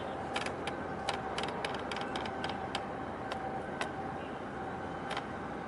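Steady rumble with a constant hum, broken by a run of sharp, irregular clicks during the first four seconds.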